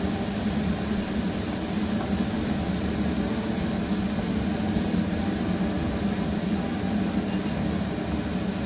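Steady rushing noise with a low hum from two pans frying on a gas stove, onions in an iron wok and chopped vegetables in a pot.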